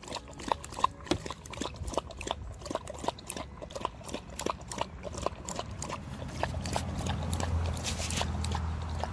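A Siberian husky lapping milk from a plastic bowl, its tongue making quick, regular wet laps at about four or five a second. A low rumble grows in about two-thirds of the way through.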